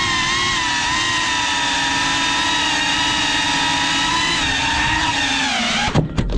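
FPV racing quadcopter's motors whining at a high pitch that wavers with the throttle. Near the end a few sharp knocks sound as the drone comes down onto a parked car's boot, and the motor whine cuts off.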